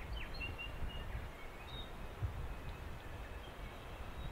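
Small birds calling with short high chirps and whistles, several times over, above a low rumble of wind on the microphone.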